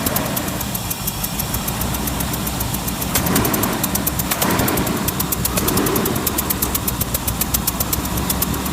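Land Rover Discovery engine running with a fast, even, repeated knock riding over the engine note: the engine is knocking.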